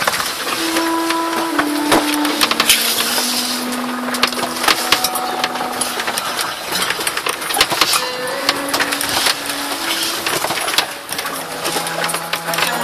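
Handling noise: clicks, knocks and rustling as a stainless steel kettle is handled and loose tea is added to it. Faint held tones shift in pitch every second or so underneath.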